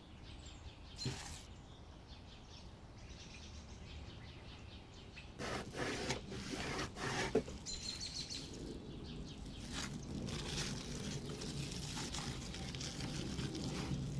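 Plastic bag crinkling and rustling as hands handle it and a knife cuts into it, starting about five seconds in after a quiet start with a single click.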